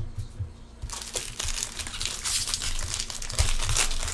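Foil wrapper of a 2015 Bowman baseball card pack crinkling as it is handled and torn open, starting about a second in.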